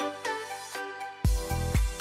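Background music: a melody of short plucked notes, joined just over a second in by a heavy bass beat about twice a second.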